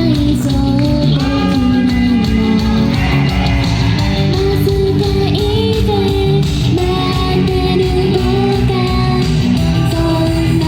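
An idol's live J-pop song: a woman sings the melody over loud band music with guitar and a steady bass.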